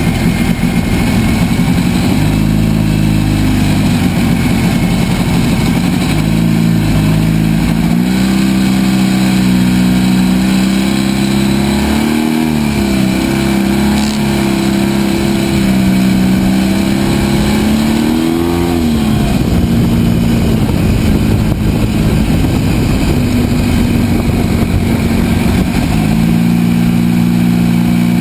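ATV engine running as it rides over sand, its pitch rising and falling with the throttle, with a quick rise and drop about two-thirds of the way through. A steady rushing noise sits under it throughout.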